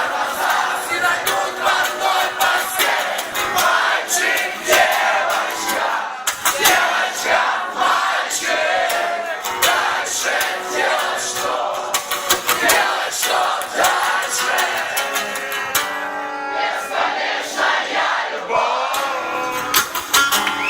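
Live band music with singing and crowd voices, a concert heard through a recording with almost no bass.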